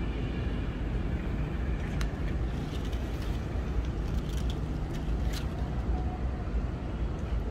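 Steady low rumble of outdoor city background noise, with a few faint sharp clicks.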